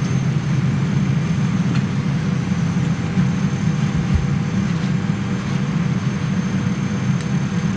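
Steady low rumble with a hiss above it, the cabin background of a Boeing 787 airliner: the air-conditioning and ventilation hum. There is a faint low bump about four seconds in.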